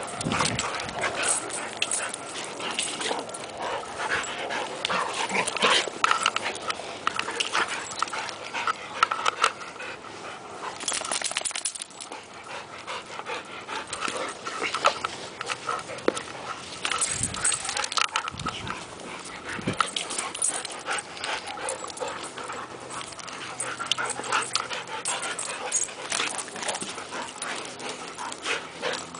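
Two dogs play-fighting, a Rottweiler mix and a long-haired dog wrestling: an irregular run of scuffles and short noises throughout, with dog whines and panting mixed in.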